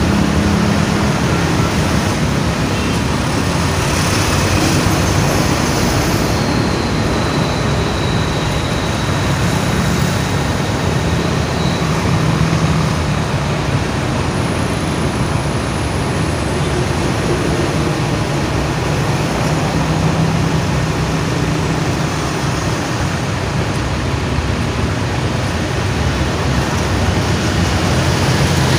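Steady road traffic and vehicle engine noise, with a low engine hum.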